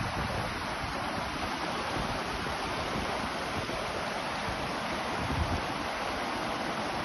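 Shallow river rushing over stones, a steady noise of flowing water, with wind buffeting the microphone.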